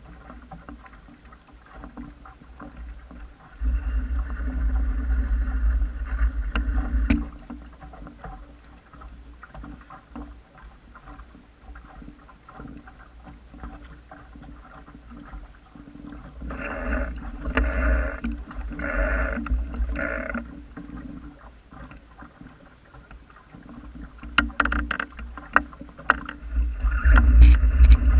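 Water splashing and lapping against the hull of a small wooden sailing dinghy under way, with gusts of wind buffeting the microphone. Midway there is a run of four slaps about a second apart, and the rush of water and wind grows louder near the end.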